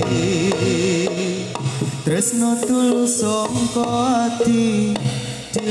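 Live jaranan ensemble music: drums struck in a quick steady pattern under a sustained melody line that wavers and slides in pitch.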